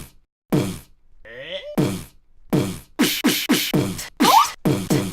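Beatboxing: a rhythm of vocal kick-drum hits, each falling in pitch. A short gliding vocal sound comes about a second in, and the beat grows faster and busier in the second half.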